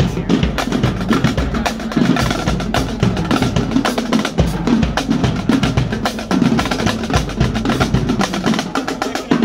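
Drumline playing marching snare drums and tenor drums: fast, dense stick strokes and rolls with deeper drum hits underneath.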